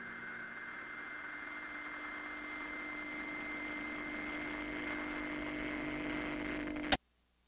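Steady background hum and hiss (room tone) with a faint steady whine, cut off abruptly by a click near the end.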